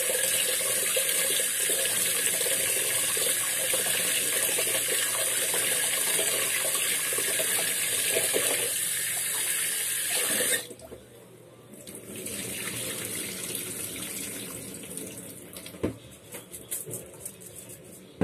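Kitchen tap running steadily into a pot of rice in a stainless steel sink while the rice is rinsed by hand, then shut off suddenly about ten seconds in. After that, quieter irregular swishing and splashing of water as the rice is stirred, with a few sharp knocks.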